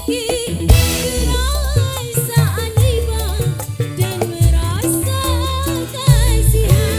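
Music: a voice singing a wavering, ornamented melody over a bass line and drum hits.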